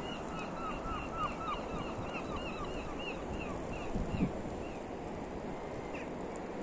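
Barnacles crackling: faint, scattered tiny clicks over a steady background hiss of wind and surf. A bird calls in a rapid series of short chirps, about three a second, which fade out about two-thirds of the way in, and there is a brief low bump about four seconds in.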